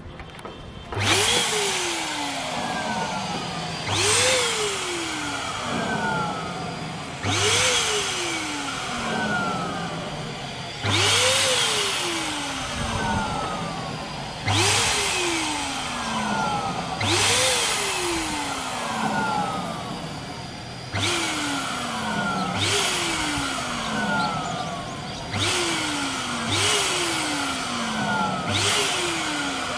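Electric balloon pump's motor running as it inflates a latex balloon. The sound jumps up and then slides down in pitch, over and over, every two to four seconds.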